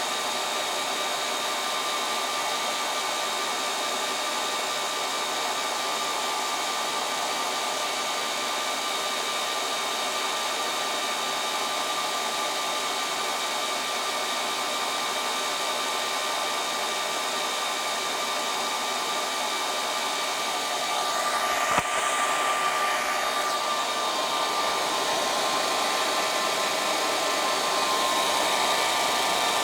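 Ceiling fan running at a constant speed: a steady airy whooshing hum with a few steady whining tones. A single knock about 22 seconds in, after which the sound is slightly louder.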